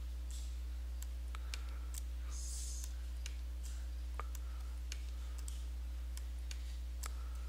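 Computer mouse clicks, scattered and irregular at about one or two a second, stepping through photos on screen, over a steady low electrical hum.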